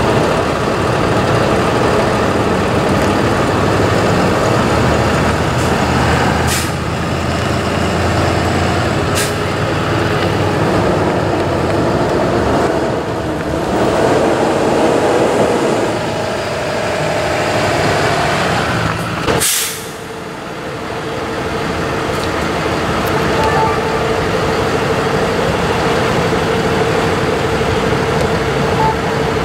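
Diesel tow truck engines running, with a few short air-brake hisses.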